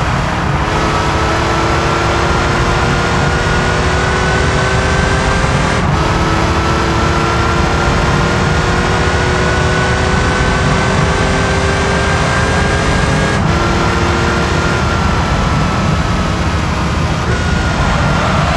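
Air-cooled flat-six of a Porsche 911 (964) pulling through the gears, its pitch climbing steadily and dropping suddenly at two upshifts, about a third and about two-thirds of the way in. A loud rushing noise of wind and road runs under the engine throughout.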